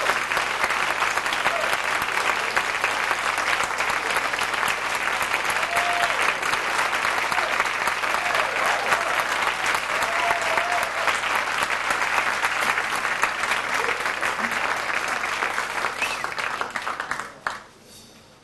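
Concert audience applauding, steady and dense, dying away about a second before the end.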